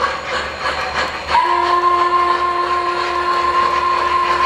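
O-gauge model steam locomotive's electronic sound system sounding its steam whistle, one long steady blast starting about a second and a half in, over the running noise of the train on the track.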